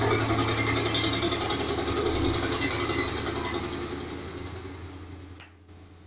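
Soundtrack of a Dolby surround demo video played through a homemade 5.1 speaker system: a deep rumble with a dense layer of higher sound over it, fading out gradually over about five seconds.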